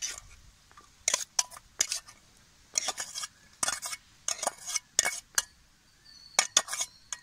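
Metal spoon scraping and tapping against a steel bowl and a plate as cooked shredded chicken is scraped out and stirred into chopped onions: a string of short, irregular scrapes and clinks.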